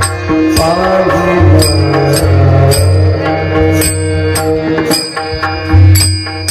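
Marathi devotional bhajan music. Brass hand cymbals (taal) strike and ring on the beat over a drum and a steady drone, and a singing voice carries a bending, ornamented melodic line in the first half.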